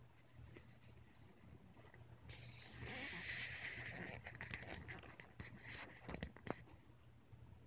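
Handling noise from a phone being held and positioned: a couple of seconds of rustling, then several sharp taps and clicks as it settles in place.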